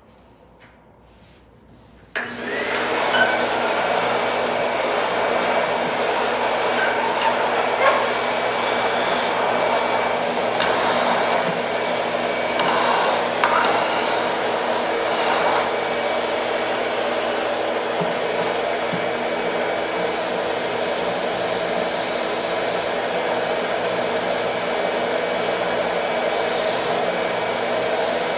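A shop vacuum switches on about two seconds in and runs steadily, a loud rushing of air over a motor hum.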